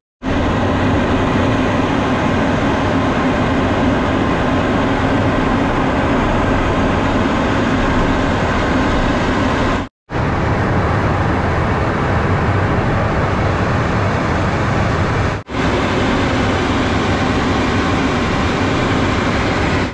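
Steady in-flight cockpit noise of a Cessna Citation M2 business jet in cruise: a constant drone of airflow and engines. It drops out abruptly twice, briefly, about halfway and again about three quarters of the way through.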